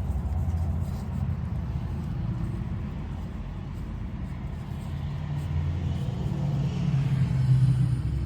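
A low, steady mechanical rumble that grows louder over the last few seconds.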